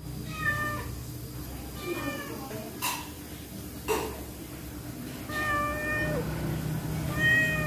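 Pregnant stray cat meowing four times, the third call long and dropping in pitch at its end. Two short knocks come between the meows.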